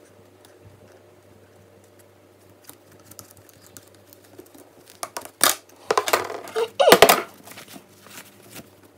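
Stiff cross-stitch fabric rustling and crinkling as it is pulled out of a plastic embroidery hoop, with sharp clicks from the hoop, loudest from about five to seven seconds in after a few seconds of faint handling.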